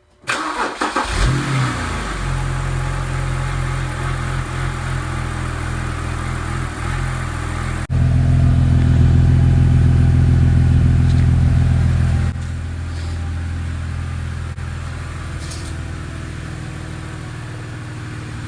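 BMW E90/E92 engine cranking and catching at the start, briefly rising in revs, then idling steadily with a cleaned, reinstalled VANOS solenoid; the owner judges the idle a lot better than the rough, hunting idle it had. It is louder for about four seconds in the middle, then settles back.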